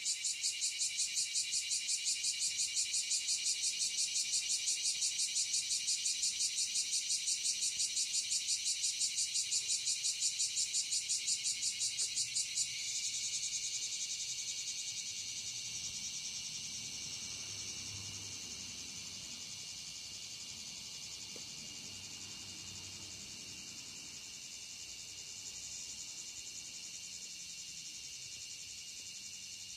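Insects chirping: a fast, evenly pulsed high chirp, about four to five pulses a second, that breaks off about 13 seconds in, leaving a steady high trill of insects.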